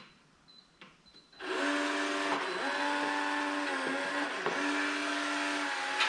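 Schlage smart deadbolt's motor whirring in several runs of about a second each, its pitch dipping briefly between runs, after a few faint beeps.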